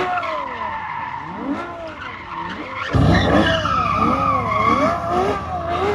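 Ferrari 812 Superfast's V12 doing donuts: engine revs swing up and down again and again while the rear tyres squeal steadily as they spin and slide. About three seconds in it turns louder, with a heavy low rumble under the squeal.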